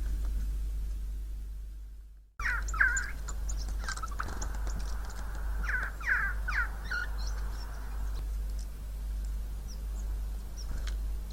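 Siberian jay giving short, harsh, falling calls in clusters, with high thin chirps mixed in, over a steady low hum. The sound fades out and cuts off about two seconds in, and the calls start right after the break.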